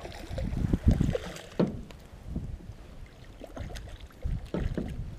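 A hooked largemouth bass splashes at the surface beside an aluminum boat at the start, followed by irregular low thumps and a few sharp knocks from the boat as the fish is fought.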